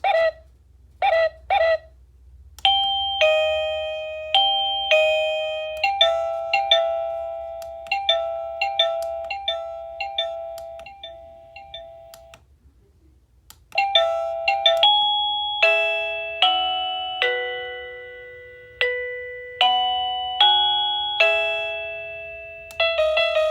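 Plug-in wireless doorbell chime receiver playing its electronic chime tunes one after another. It gives three short beeps at the start, then a melody of bell-like notes that each fade, a pause, a second, different tune, and a third tune starting near the end.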